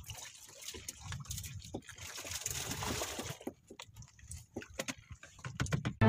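Water sloshing and splashing in and around a small wooden outrigger boat, with scattered knocks and clicks as a plastic bucket is handled in the hull; the splashing is densest about two seconds in.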